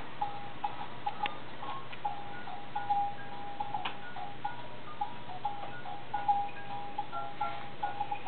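Electronic baby-toy tune: a run of short beeping notes stepping up and down in pitch, from the activity center's light-up musical toy. A few sharp clicks sound over it.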